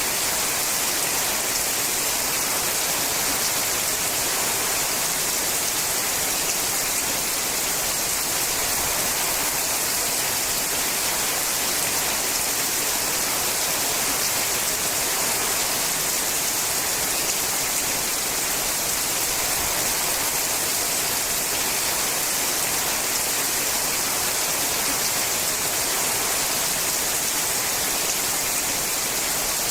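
Rain falling steadily on a sheet-metal roof, a dense, even hiss that does not change or break.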